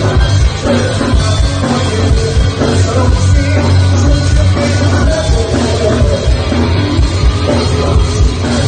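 Loud rock music with singing played through a mini stage PA sound system (4×3, BV18) on test, heavy in the bass with a steady kick-drum beat.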